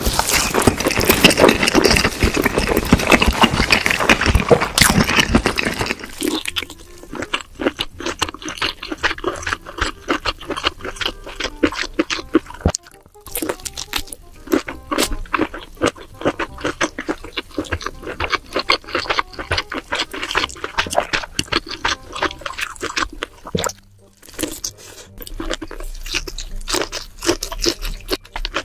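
Close-miked eating: loud crunching bites and chewing of sauced fried chicken for about the first six seconds. Then quieter, wet chewing with many small mouth clicks and smacks, from eating cheese-topped baked lobster.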